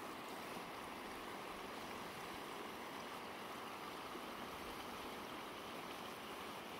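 Shallow mountain stream running over rocks and stones, a steady even rush of flowing water.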